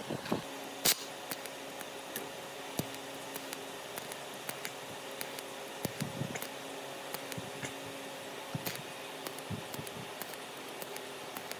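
TIG welding arc on the metal cooling-fan blades of a power-tool armature: a steady low hum with hiss, burning in two stretches of about three seconds each, with scattered small clicks.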